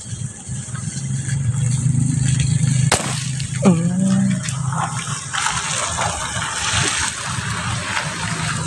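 An air rifle fires a single sharp shot, a slug, about three seconds in, over a low steady hum. A short falling tone and a steady rushing hiss follow.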